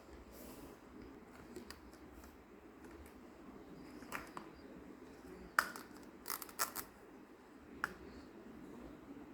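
Sparse sharp clicks and taps of small hard items being handled, with a quick run of four clicks after the loudest one in the middle.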